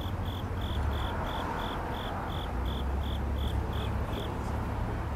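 A run of short, high-pitched chirps at one even pitch, about three a second, stopping about four seconds in, over a steady low rumble.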